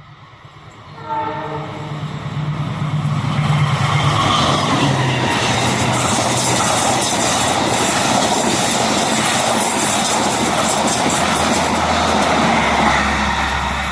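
A train sounds a short horn blast about a second in. Then the locomotive and its cars pass close by, loud and steady, with wheels clattering on the rails.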